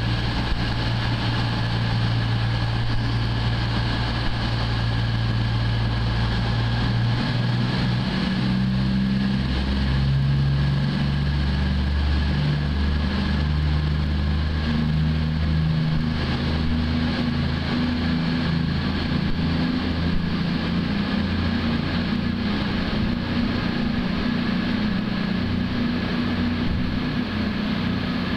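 Bombardier Voyager diesel-electric multiple unit's underfloor diesel engines idling steadily, then revving up in steps about seven seconds in as the train pulls away.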